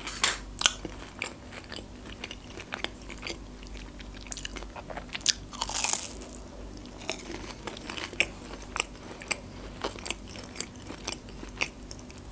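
Close-miked biting and chewing of a crispy breaded fried chicken strip: loud crunches on the bites near the start and again around five to six seconds in, with a steady run of small crackling crunches between.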